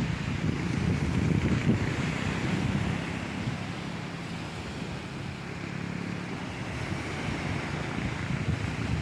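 Sea surf washing in, with wind gusting on the microphone and a faint steady low hum underneath.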